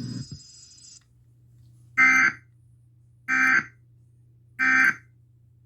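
Emergency Alert System end-of-message code: three short, identical buzzy data bursts, each about a third of a second long and a little over a second apart. They signal that the alert test is over.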